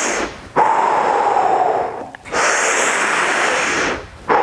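A man breathing deeply and audibly: long, loud breaths about a second and a half each, with short pauses between them, taken while holding a chest-opening stretch.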